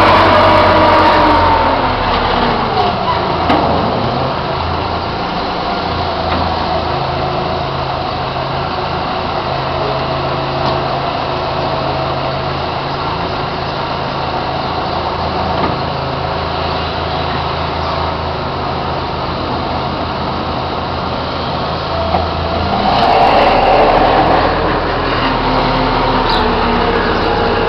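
Hanomag 22C wheel loader's diesel engine running close by while handling hay bales: higher revs at first, dropping to a steady lower speed about two seconds in, then revving up again for a few seconds near the end.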